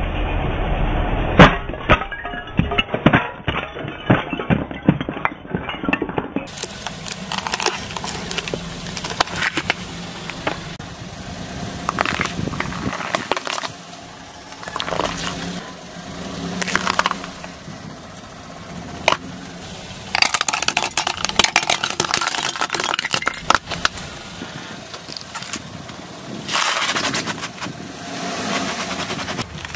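A car tyre rolling over and crushing objects one after another: small terracotta clay cups cracking and breaking apart, then vegetables splitting and crunching, ending with a cabbage being squashed. There are many sharp cracks and crackling snaps, densest in the first few seconds.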